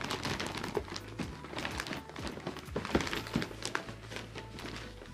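A plastic shopping bag rustling and crinkling as a cardboard camera box is pulled out of it, with a few dull knocks of the box.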